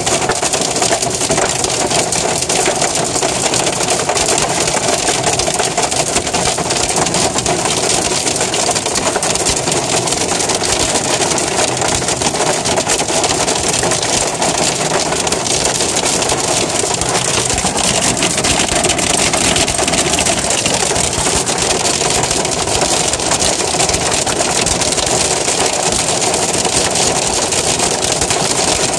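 Hail and rain pelting a car's roof and windows, heard from inside the car: a loud, dense, unbroken clatter of small impacts.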